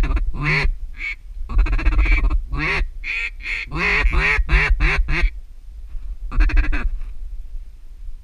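Duck call blown in runs of short quacks to work incoming ducks, several runs in the first five seconds and one more short burst near the end. Wind rumbles on the microphone throughout.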